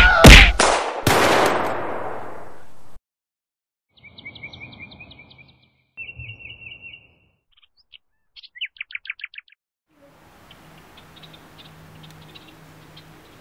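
Three loud gunshots in quick succession, their ringing tail cut off abruptly about three seconds in. After a short silence, birds chirp and trill for several seconds, then faint outdoor ambience with distant birdsong.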